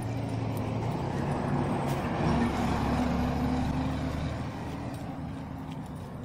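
A heavy road vehicle's engine rumbles past, swelling to its loudest in the middle and fading toward the end.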